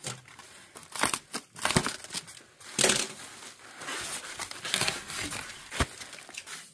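Styrofoam packing blocks rubbing and scraping against each other and a plastic bag crinkling as a packed figurine is worked out of its foam, in irregular bursts with a few sharp knocks.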